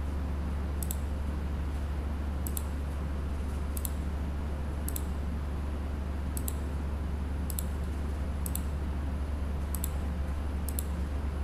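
Computer mouse clicking about once a second, some clicks heard as close pairs, over a steady low electrical hum.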